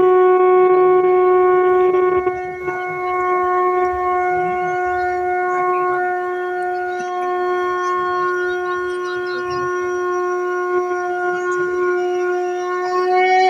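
A border guard's drawn-out parade command shouted on one steady, loud note and held for well over ten seconds, breaking off near the end.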